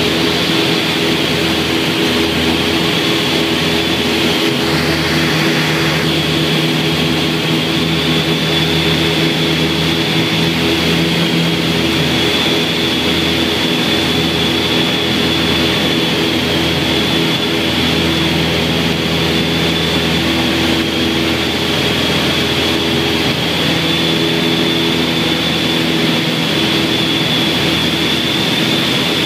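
The piston engines and propellers of a light twin-engine aircraft, heard from inside the cockpit, run at steady high power in the climb-out of a go-around. They make a continuous drone with a steady high whine over it.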